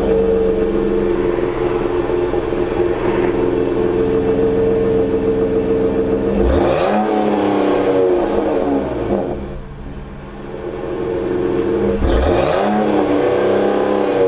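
2019 Ram 1500's 3.6-litre Pentastar V6 with eTorque being revved and heard from the exhaust tip: held at high revs for about six seconds, then dropping back toward idle, and revved up again about twelve seconds in.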